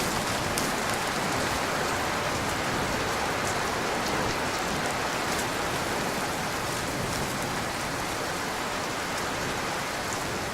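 Steady rain: an even hiss with a few faint scattered drop ticks.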